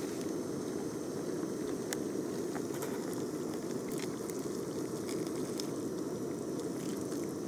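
Gas canister camping stove burning with a steady even hiss while just-boiled water is poured from a metal mug into an instant-noodle cup, with a few faint clicks.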